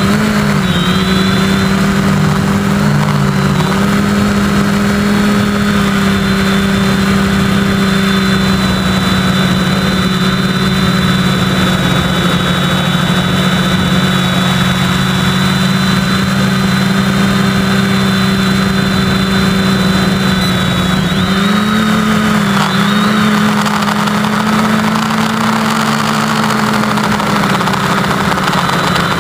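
SK450 Dead Cat quadcopter's motors and propellers running with a loud, steady hum, picked up by the onboard camera. The pitch dips briefly and recovers with throttle changes near the start, around four seconds in, and again about three-quarters of the way through.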